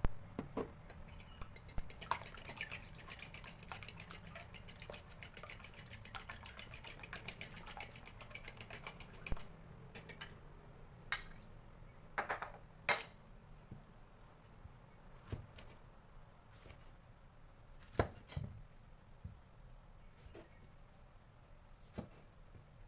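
A fork beats eggs in a ceramic bowl: a rapid run of clicks against the bowl for about eight seconds. Scattered single taps and knocks follow as the utensils and bowl are set down, and near the end a cleaver cuts into a tomato on a wooden board.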